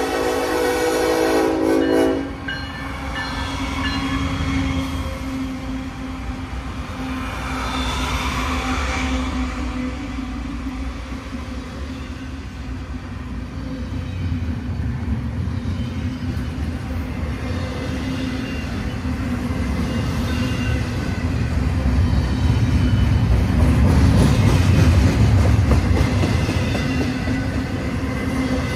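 Norfolk Southern freight train's diesel locomotive horn sounding a chord that cuts off about two seconds in, followed by the locomotives and double-stack container cars rolling past with a steady low rumble that swells near the end.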